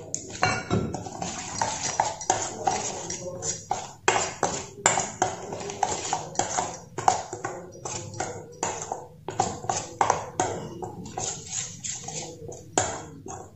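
Steel spoon stirring a thick semolina-and-curd batter in a stainless steel bowl, scraping and clinking against the metal several times a second.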